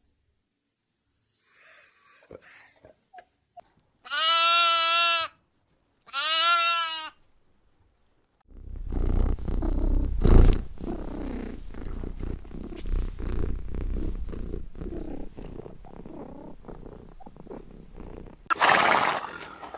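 Animal calls: a faint high chirp, then two loud drawn-out calls about a second each, followed by a long low rumbling vocalization lasting about ten seconds.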